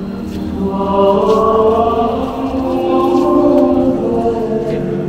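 Slow choral chanting: voices singing long held notes over a steady low drone, swelling a little louder about a second in.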